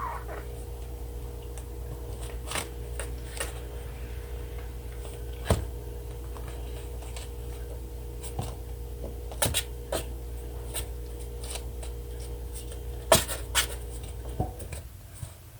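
Kittens at play: scattered light taps, clicks and brief scratchy scrabbles from small paws and claws, with a sharper click about five seconds in and another near the end. Under them runs a steady low hum that cuts off near the end.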